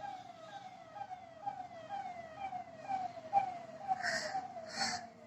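A siren-like tone that drops in pitch over and over, about two short falling sweeps a second, with two brief hissing bursts near the end.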